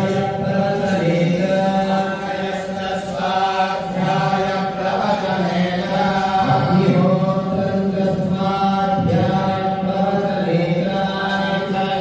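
Mantras chanted for a Hindu abhishekam ritual, a steady recitation on long-held notes that step between a few pitches.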